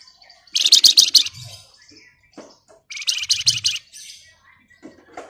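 Flamboyan songbird singing 'ngebren': two loud, rapid rattling trills of high notes, each about a second long, with faint short calls between them.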